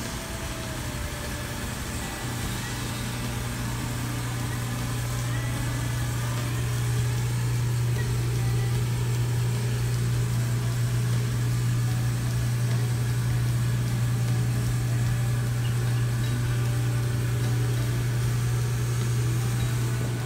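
A steady low drone of an engine running, growing a little louder about seven seconds in.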